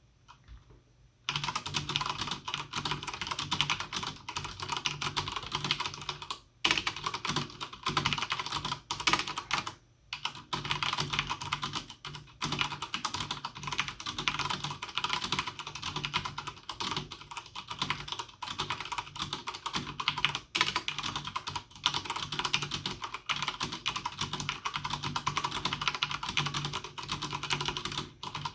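Logitech G710+ mechanical keyboard with Cherry MX Brown switches being typed on quickly: a dense, continuous clatter of keystrokes that starts about a second in, with a couple of brief pauses.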